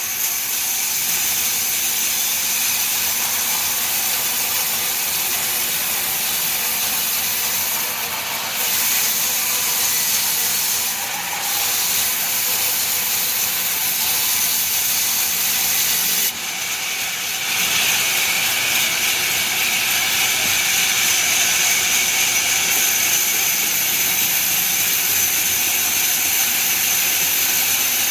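Sawmill saw machinery running, a steady high-pitched whine over a hiss, shifting briefly a few times.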